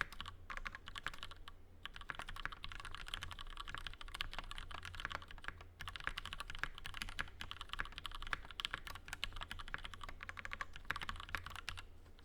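Fast typing on a PH60 mechanical keyboard with lubed Gateron Milky Black linear switches, Cherry stabilizers and a POM plate: a steady stream of keystroke clicks broken by a few short pauses.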